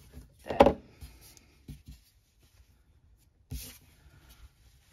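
Hands handling a knitted beanie: a few faint soft knocks, then a brief rustle of the knit fabric about three and a half seconds in as the hat is picked up.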